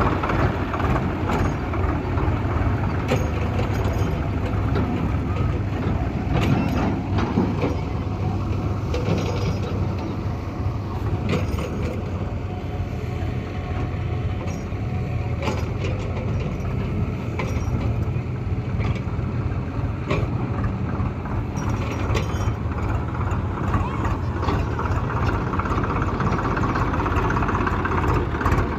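Heavy diesel engine running steadily, with scattered knocks and clatter over it.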